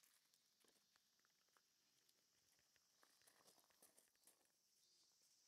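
Near silence, with a very faint patter of a puppy's paws on loose gravel.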